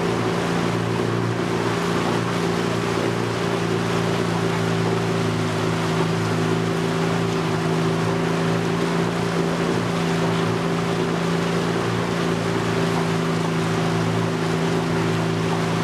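Small boat's outboard motor running steadily under way, over the wash of water along the hull.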